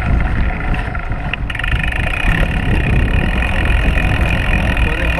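Chris King rear hub's freehub buzzing, a steady high-pitched whir that starts about a second and a half in, over the low rumble of the mountain bike's tyres rolling on a dirt trail.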